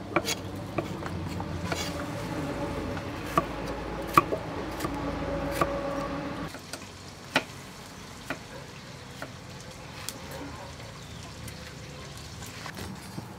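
Kitchen knife cutting a red bell pepper on a wooden chopping block: scattered sharp taps of the blade on the board. A steady hum with a few held tones lies under the first half and stops about six and a half seconds in.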